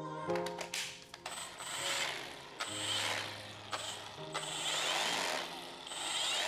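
Recurring swells of rattling, scraping mechanical noise about every second and a half, with a few sharp clicks near the start, from work on the gear head of a Milwaukee M18 cordless polisher during a grease swap. Background music plays underneath.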